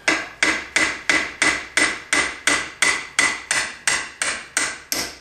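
A hammer tapping a CV joint's tripod bearing assembly off the splined axle shaft: a steady run of about fifteen blows, roughly three a second, each dying away quickly.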